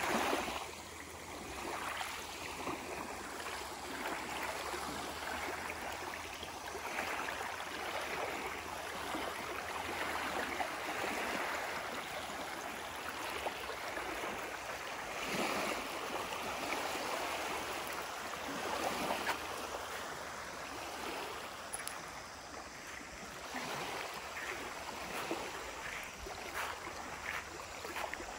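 Small lake waves lapping and washing up onto a gravelly shore, the wash swelling and falling back every few seconds.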